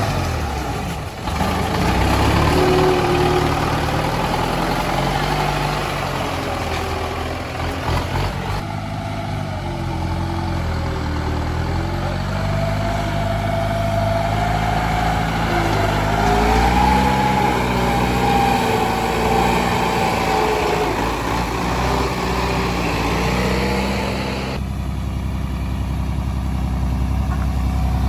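Heavy machinery diesel engine running, its revs rising and falling, with a few sudden shifts in the sound.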